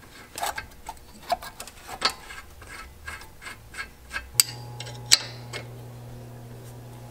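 Light metallic clicks, taps and scraping of a brake caliper and its bolts being handled and started by hand on a 2012 Hyundai Sonata's front brake, with two sharper clicks a little past the middle. A low steady hum comes in partway through.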